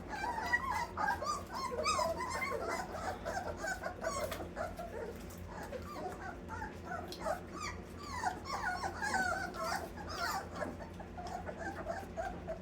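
Litter of Old English Sheepdog puppies whimpering and squeaking, many short high calls overlapping, with scattered small clicks.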